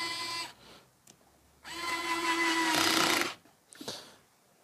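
Bosch Professional cordless screwdriver's motor whirring in two short runs, one stopping about half a second in and a longer one starting near the middle and stopping about a second later, as it works a screw.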